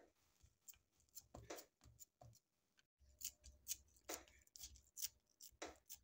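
Silicone spatula pressing and spreading crumbly sesame halwa mixture into a plastic tray: faint, irregular scraping and patting strokes, coming more often in the second half.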